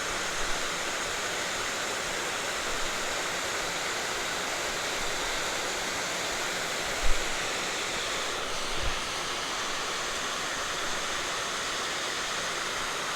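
Steady rush of water pouring over a river spillway. A brief low thump comes about seven seconds in, and a smaller one about two seconds later.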